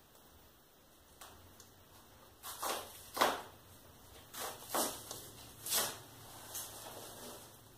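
Fire in a glass-fronted wood stove, with disposable diapers burning on the logs, crackling and popping: about six sharp pops between a third of the way in and near the end, the loudest a little before the middle, over a quiet background.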